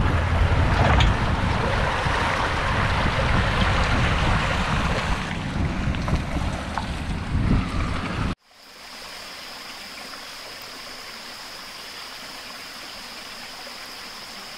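Rushing wind and water noise for about eight seconds, then an abrupt cut to a much quieter steady hiss with a thin, steady high-pitched whine.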